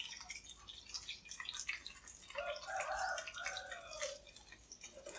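Battered tofu and mushroom pieces deep-frying in hot oil, a quiet sizzle full of small, irregular crackling pops. A faint wavering sound rises under it for a second or two about halfway through.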